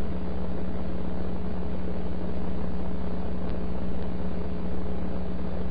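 Two-meter AM amateur radio receiver putting out steady hiss with a low hum beneath it, the channel open with no station calling in.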